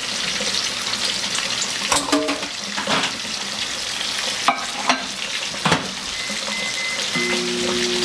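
Meat sizzling as it browns in a frying pan, a steady hiss. A handful of sharp knocks of utensils against pans come through it, and a low steady hum starts near the end.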